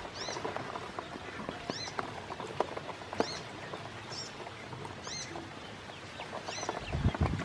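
Ducklings peeping in short, arched high calls every half second to a second, over quick clicks and taps as their bills peck feed off the bottom of a plastic basin of water. A brief low rumble near the end.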